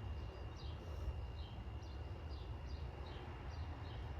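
A small bird chirping over and over, about two short chirps a second, over a low steady rumble and a faint steady high tone.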